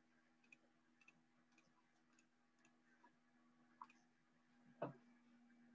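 Near silence with a steady low hum and faint, irregular clicks about twice a second, then a single louder thump near the end.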